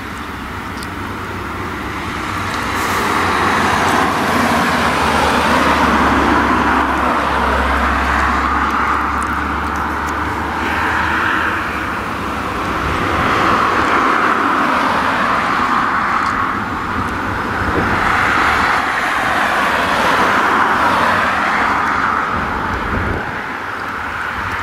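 Fendt tractor running as it pulls a twin-rotor hay rake through a field, the engine and rake rotors heard together. The noise swells and eases every few seconds, and a low rumble drops away about halfway through.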